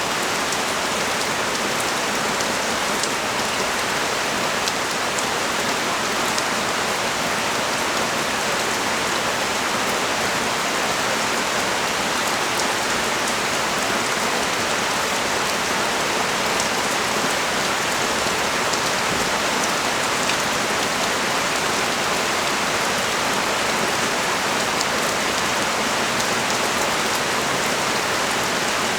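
Heavy rain pouring steadily, a dense even hiss of drops landing on hard surfaces.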